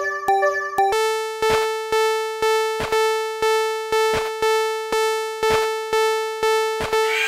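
Synthesized level-crossing warning bell ringing. It starts as an alternating two-note chime, then about a second in switches to a single bell tone struck about twice a second.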